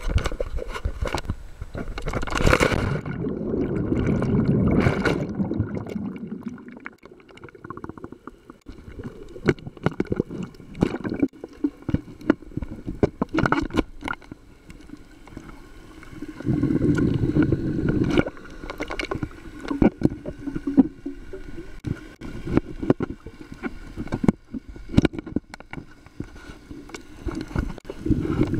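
A camera going into the sea and recording underwater: a loud rush of water a couple of seconds in, then muffled bubbling and gurgling with scattered sharp clicks and knocks, and further bouts of bubbling later on.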